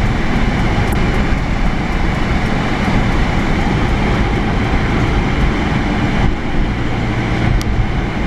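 Car driving on a snowy, icy road, heard from inside the cabin: steady tyre and engine noise.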